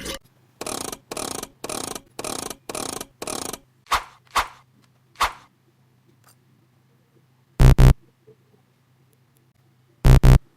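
Electronic sound effects: a run of six short, evenly spaced pulses, then three quick swishes, then two short loud synthetic beeps, one about two thirds of the way in and one near the end.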